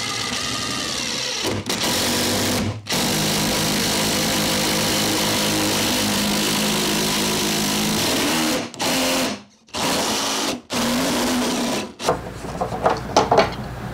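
Power drill turning a spade bit on a flexible drill bit extension, boring through a wooden stud. It runs in long steady stretches broken by a few brief stops, and stops about twelve seconds in.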